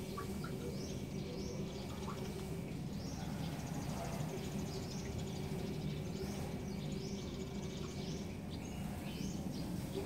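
Outdoor morning ambience: birds giving short chirps again and again over a constant low rumble of background noise, with a thin steady high tone throughout.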